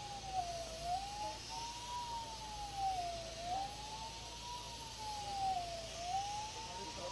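A siren wailing, its pitch rising and falling slowly, about once every two and a half seconds.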